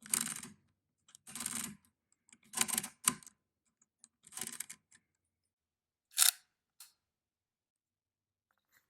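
Argos II chain adding machine being worked by hand: a series of short mechanical ratcheting strokes, about one a second, with the sharpest one about six seconds in.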